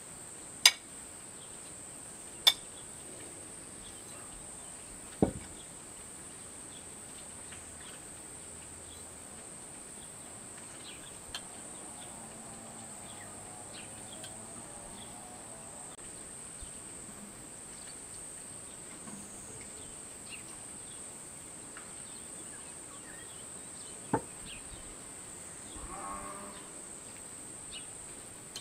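Metal serving tongs clinking against ceramic plates: a few sharp clinks in the first several seconds and one more later. Under them runs a steady high chirring of crickets.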